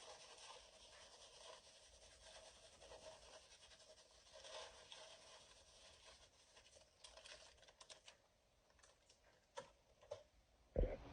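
Faint room tone with light rustling and ticking, then a few sharp clicks and knocks near the end, the last a heavy thump.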